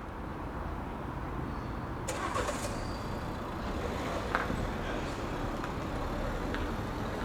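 A motor vehicle engine running close by as a steady low rumble, with a few scattered light clicks and knocks.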